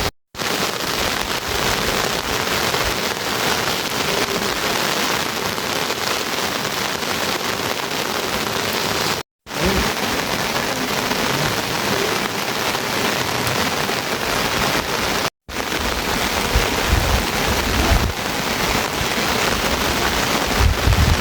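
Steady heavy rain falling, with some low rumbling in the second half. The sound drops out briefly three times.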